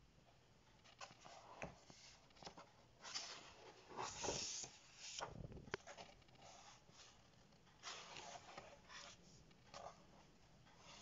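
Paper pages of a colouring book being turned and smoothed flat by hand: a series of short rustles and slides, busiest about four seconds in.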